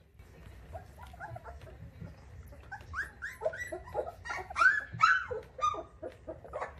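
A litter of two-week-old Labrador retriever puppies whining and squealing: many short cries that rise and fall in pitch, overlapping, growing busier and louder from about three seconds in.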